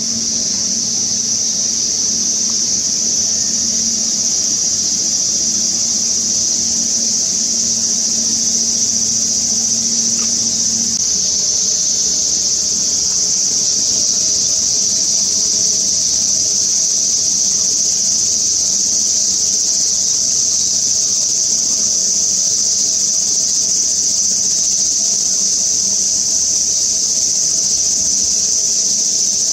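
Outdoor insect chorus: a steady, high-pitched continuous drone.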